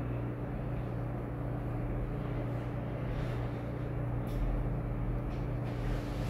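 A steady low hum over quiet room noise, with a faint click about four seconds in.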